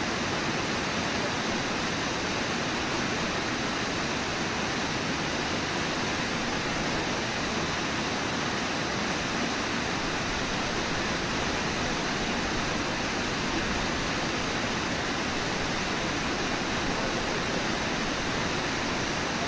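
Steady, even rush of river water pouring over a low waterfall.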